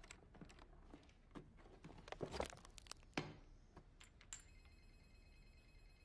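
Faint clicks, taps and rustles of small objects being handled by hand. About four seconds in, a high ringing tone starts sharply and holds for about two seconds.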